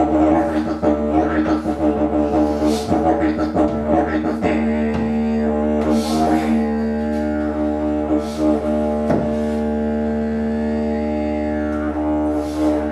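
Didgeridoo playing a continuous low drone with shifting, sweeping overtones, pulsed in a quick rhythm for the first few seconds and held steadier after that.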